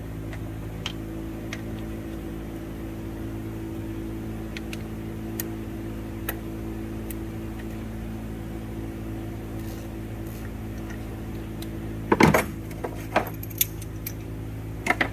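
Metal clinks of a wrench on the bolt of a Cummins ISX injector-cup retaining-ring installer tool as it is screwed down in the open cylinder head, with a loud cluster of clinks about 12 seconds in. A steady low hum runs underneath.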